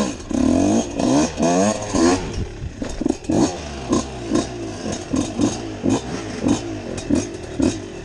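125 cc enduro dirt bike engine revving in rising sweeps for the first two seconds, then running in short, regular pulses of throttle, about three a second.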